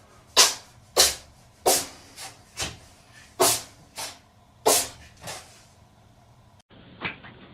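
A cat sneezing in a rapid fit: about nine sharp sneezes over five seconds, some loud ones followed by a softer one. Near the end, after a brief break, come a couple of fainter, duller sneezes.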